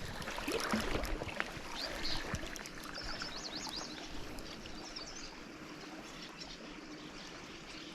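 Snake River current flowing, a steady rushing of water, with a few faint high chirps about three seconds in.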